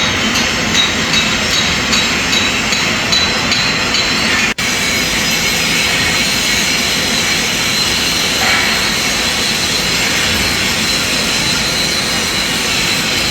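TIG welding arc, a steady hiss, as the torch's ceramic cup is walked along the joint. The sound drops out for an instant about four and a half seconds in.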